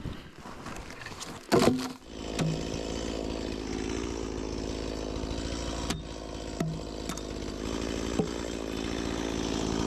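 Chainsaw starting up about two seconds in after a couple of knocks, then running steadily while black spruce is cut for firewood.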